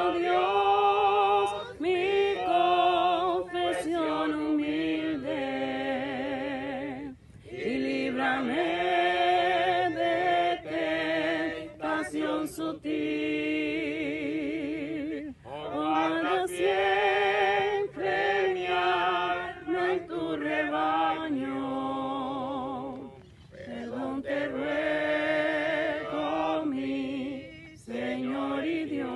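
A small group of voices singing a Spanish hymn unaccompanied, in long held phrases with short breaths between lines.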